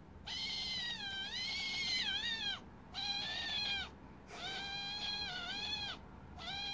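Eurasian eagle-owl giving drawn-out, high-pitched whining calls, four in a row with short gaps; the first call wavers in pitch near its end.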